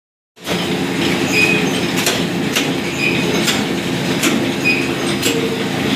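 Five-colour woven rice bag printing machine running: a steady mechanical clatter with a short high squeak about every one and a half seconds and sharp clicks in between. It starts about half a second in.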